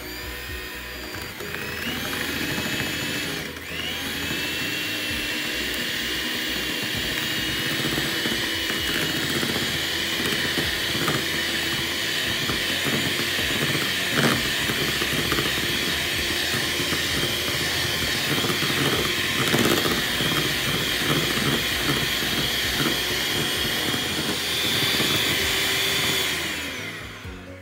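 Electric hand mixer running, its beaters whipping mascarpone, cream cheese and powdered sugar in a plastic bowl. The motor whine climbs as it starts, dips briefly a few seconds in, and winds down just before the end, with a single sharp knock about halfway through.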